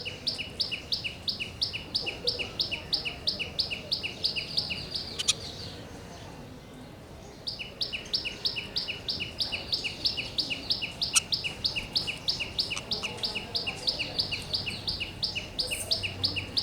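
A bird calling a fast, even series of paired high chirps, about four a second. It breaks off after about five seconds and starts again roughly two seconds later.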